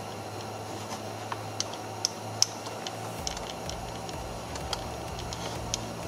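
Irregular small clicks and taps of a 10 mm socket on an extension being turned by hand, unscrewing a steering-wheel airbag retaining bolt, over a steady low hum.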